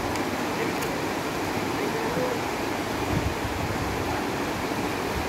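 Steady rush of a shallow river flowing over rocks, with faint voices murmuring in the background.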